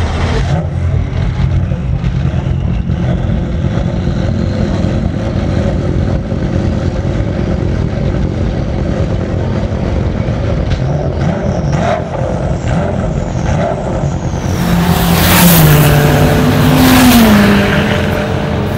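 Race car engines at a racetrack: a steady low engine rumble, then about fifteen seconds in a car passes close by at speed, loudest as it goes past, its engine note sliding down and up.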